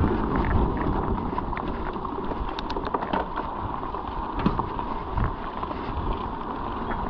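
Mountain bike being ridden over a rough trail surface: wind buffeting the microphone over a steady rumble of tyres, with many small clicks and rattles from the bike and loose surface.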